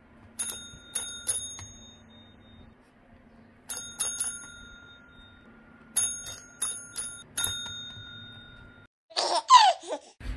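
A pet call bell, a tabletop service-style bell, is struck by a Yorkshire terrier's paw: three rings, then three more, then four, each ringing on briefly. Just before the end comes a short, loud burst of quick sliding-pitch sounds.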